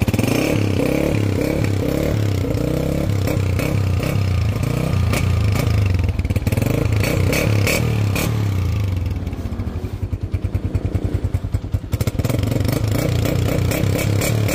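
Honda CG125's single-cylinder four-stroke engine running and revved through an aftermarket HL3 silencer, dropping quieter about ten seconds in and picking up again a couple of seconds later.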